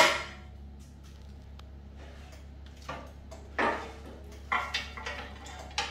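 The bubble remover's chamber door unlatching with a sharp click, then a handful of light clinks and knocks as things are handled in the chamber.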